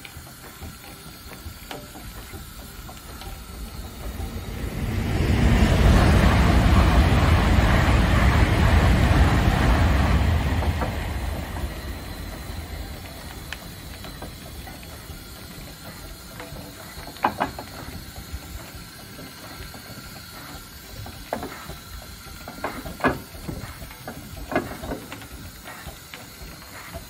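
Fowler steam roller in steam: a long, loud rush of blowing steam swells up a few seconds in, lasts about six seconds and dies away. Then the engine runs quietly, with scattered metallic knocks and clanks.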